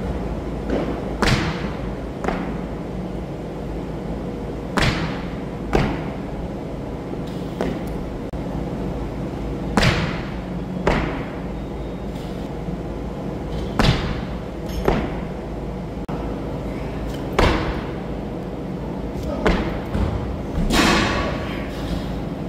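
Repeated sharp thuds of a barbell session on a wooden lifting platform: feet and loaded bar landing, mostly in pairs about a second apart, every three to four seconds.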